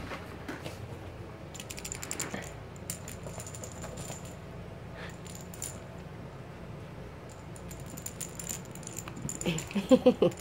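Jingle-bell cat toy ball jingling in short bursts as a kitten bats it across the floor. A few loud, short voice sounds near the end.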